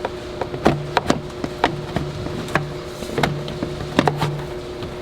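Irregular clicks and knocks of a plastic turbo inlet tube being twisted and pulled off the turbocharger in a truck's engine bay, over a steady hum.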